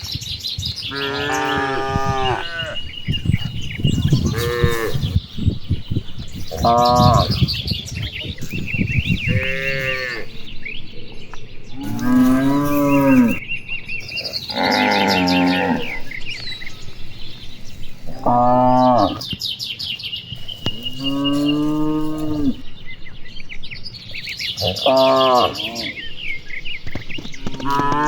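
Cattle mooing one after another, about ten long calls, some higher and some deeper, every two to three seconds, from several animals in a herd. Faint bird chirps sound between the calls.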